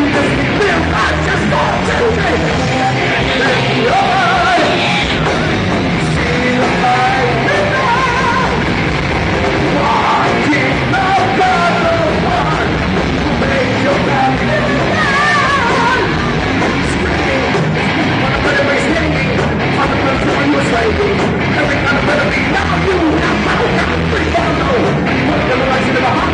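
Live rock band playing loud: drums, electric guitar and a vocalist singing and yelling over them.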